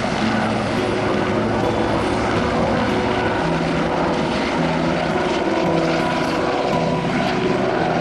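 Helicopter running: a steady, loud engine and rotor noise with several steady tones that shift slightly in pitch about three and a half seconds in.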